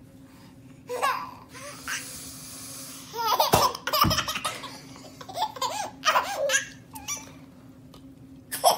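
A toddler laughing in repeated bursts of high-pitched giggles, loudest about halfway through, with two dull thumps at that point.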